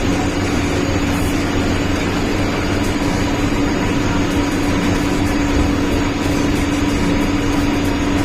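CNC machine tool running steadily while cutting teeth on a metal harvester shaft: a constant mechanical hum with one steady mid-pitched tone over dense machining noise.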